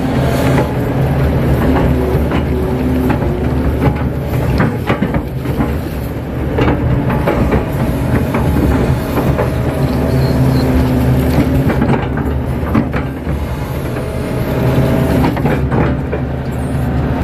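KATO crawler excavator's diesel engine running steadily under load, heard from inside the cab, as the bucket digs wet pond-bottom mud. Scattered knocks and clanks come from the working arm and bucket.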